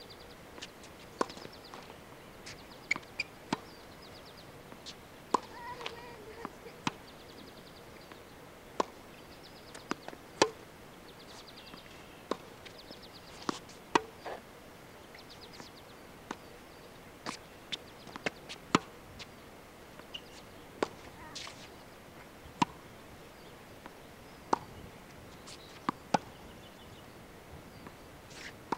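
Tennis balls hit with a racket and bouncing on a hard court: a string of sharp pops at irregular intervals, about one to two a second.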